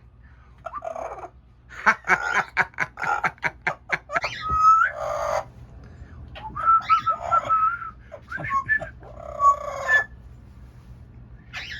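Amazon parrot making a rapid series of clicks, then wavering whistles and harsh squawky calls, with no words.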